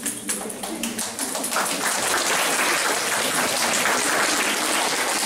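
Crowd of schoolchildren and adults applauding. A few scattered claps at first, then the clapping thickens about a second and a half in and carries on steadily.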